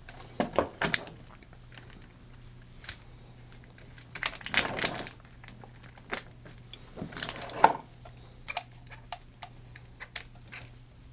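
Hands working on a small RC car chassis: clicks, taps and rustling of small plastic and metal parts in three short bursts, about half a second in, near the middle and at about seven seconds, then scattered light ticks.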